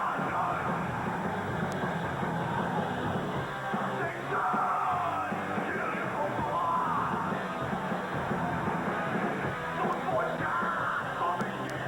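Loud rock band playing with distorted guitars, drums and shouted vocals.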